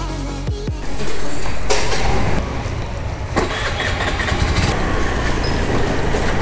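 Honda scooter's engine running as the scooter pulls away and rides off, with a rise in loudness about a second in.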